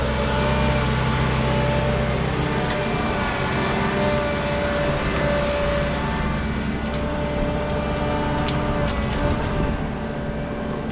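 Caterpillar bulldozer's diesel engine working under load: a steady heavy drone with a few whining tones, and several sharp clanks from about seven to ten seconds in.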